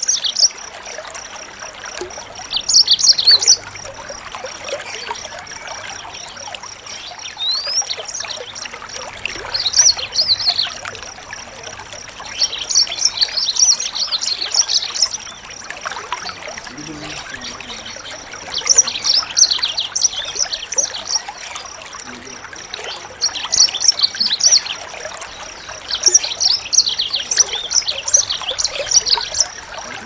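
A small songbird singing in repeated bursts of fast, high twittering every few seconds, over a steady background of trickling water and a constant thin, high tone.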